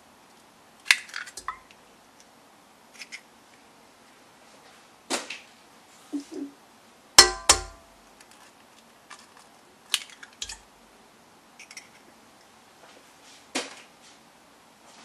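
Scattered clicks and clinks of a white flat beater being fitted onto a red stand mixer's shaft over a stainless steel bowl: about a dozen sharp knocks with pauses between. The loudest, about seven seconds in, rings briefly like metal.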